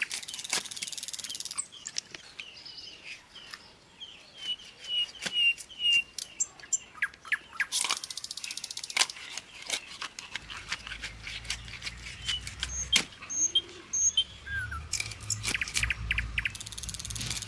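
Small birds chirping in quick repeated notes, over scattered sharp clicks and crunches of a curved iron blade cutting raw fish into pieces on a banana leaf.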